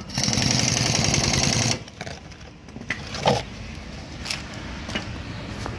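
A handheld power tool runs in one burst of a little under two seconds with a fast rattling whir, then stops; a few clicks and knocks of tools and parts being handled follow.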